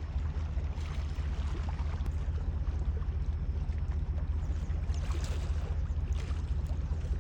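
Lake water lapping and splashing over a steady low rumble, with small crackling splashes that thicken briefly near the middle.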